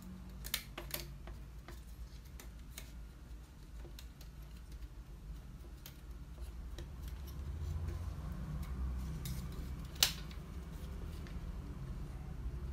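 Scattered small clicks and light plastic-and-metal clatter as an HP LaserJet 5200 fuser assembly is taken apart by hand, its wire clips and latches being released, with one sharp snap about ten seconds in.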